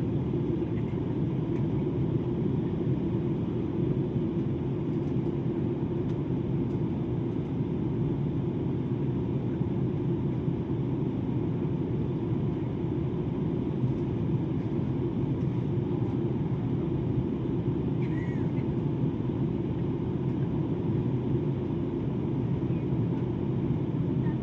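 Steady low rumble of a Lion Air airliner's cabin in flight: engine and airflow noise.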